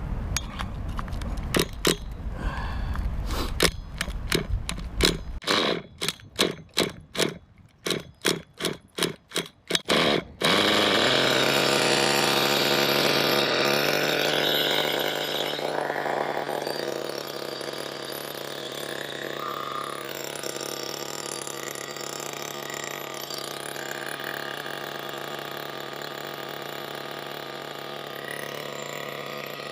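Small nitro glow engine in an RC buggy being cranked over in a run of short, evenly spaced strokes, about two a second. It catches suddenly about ten seconds in and keeps running, settling to a steady idle.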